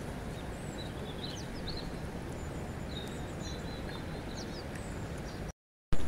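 River water flowing steadily over stones, with small birds giving short chirps and whistles throughout. Near the end the sound cuts out for a split second and comes back with a sharp click.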